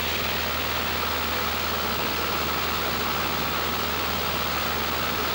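A Cessna light aircraft's piston engine and propeller droning steadily, heard from inside the cabin, with a steady hiss of air over it.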